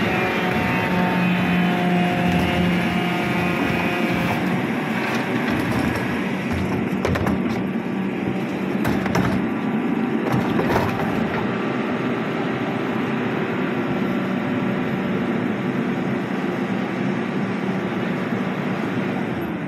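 Garbage compactor truck running, its engine and hydraulic compactor making a steady hum with a held tone. Between about five and eleven seconds in there are sharp cracking and knocking sounds, from rubbish being crushed in the hopper and plastic bins being handled.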